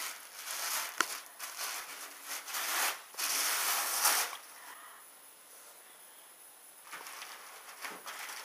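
Tissue paper and bubble wrap rustling and crinkling as a wrapped box is handled and lifted out of a cardboard shipping box. There is a sharp click about a second in and louder rustling around three to four seconds in, then a quieter spell before the rustling picks up again.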